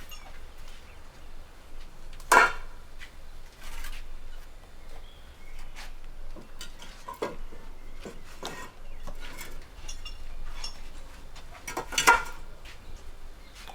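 Scattered sharp clinks and knocks of hard objects striking one another. The two loudest come about two seconds in and near the end, with fainter taps between.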